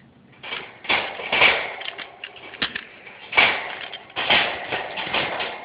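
Birdcage rattling and scuffling: a series of noisy scrapes and short clicks, loudest about one and a half and three and a half seconds in.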